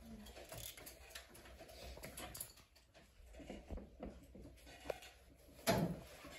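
Quiet classroom room noise with faint scattered clicks and rustles, including a dry-erase marker writing on a whiteboard, then one short louder noise about a second before the end.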